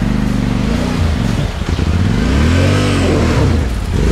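Yamaha Ténéré 700's parallel-twin engine revving unevenly under load as the bike is wrestled round in deep mud, with one long rise and fall in engine speed about two to three seconds in.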